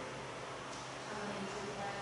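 A pause in a man's speech over steady background hiss, with his voice returning faintly about halfway through.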